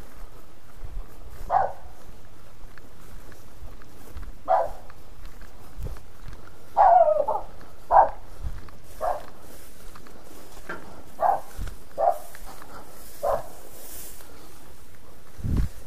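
A dog barking again and again, about ten short barks at uneven gaps of one to three seconds, over the dull thuds of someone's footsteps.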